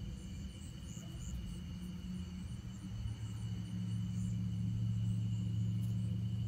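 Crickets trilling steadily in the evening. A low hum of unclear source, louder than the insects, swells about halfway through.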